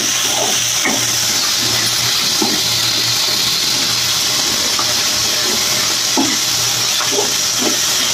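Onions, tomatoes and fenugreek leaves frying in hot oil in a metal kadai: a steady sizzling hiss, with a steel spoon stirring and scraping against the pan several times.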